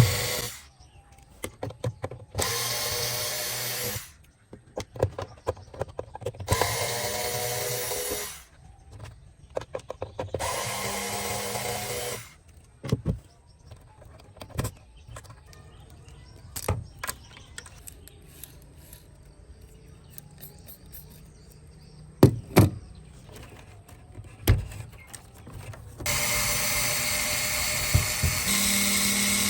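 Small power drill running in short bursts of about two seconds, four times, with clicks and knocks from handling the workpiece between the runs.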